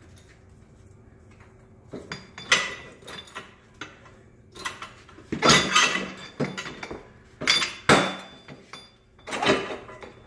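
Metal parts of a tubing anchor catcher's slip assembly and housing clinking and knocking together as they are handled and fitted, a run of sharp metallic knocks after a quiet first couple of seconds.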